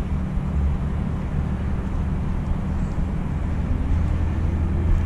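Steady low drone of vehicle engines, with a faint rising whine in the last couple of seconds.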